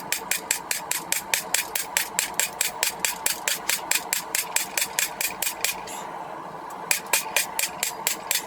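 Rapid hammer blows on a rail spike on an anvil, about five strikes a second with a steady metallic ring underneath. The hammering stops for about a second near the middle, then starts again.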